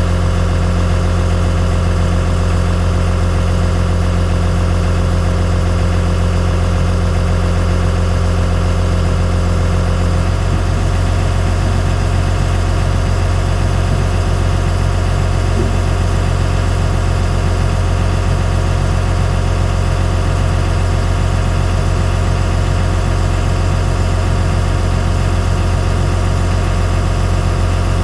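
Cat 315C L excavator's diesel engine idling steadily, heard from inside the cab with a deep, even hum; a little of its tone drops away about ten seconds in.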